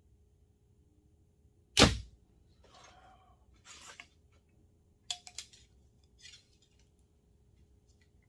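Compound bow firing, released by a back-tension hinge release: one sharp snap of the string about two seconds in, with a brief low ringing after. Softer rustling follows, then a few light clicks as the bow and release are handled.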